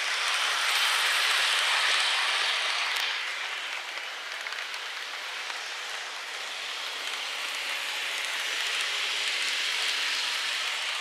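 N-gauge model trains running on the layout's track, a steady hissing rattle of small wheels and motors. It is loudest over the first few seconds as a Micro Ace Kintetsu 20100 series set passes close, dips, then swells again near the end as another train passes.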